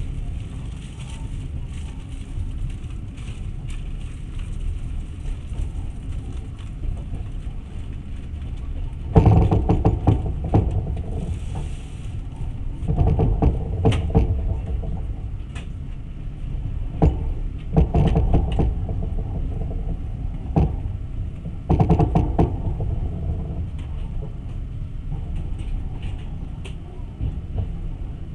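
Long-distance passenger train running, heard from on board: a steady low rumble with scattered clicks, swelling louder four times for a second or two.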